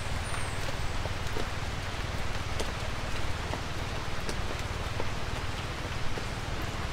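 Light rain falling in woodland: a steady hiss with scattered single drops ticking close by, over a steady low rumble.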